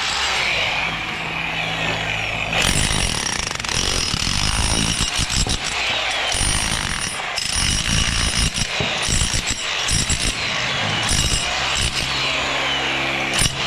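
Construction power tools and machinery running continuously, with the low steady hum of an engine near the start and again near the end.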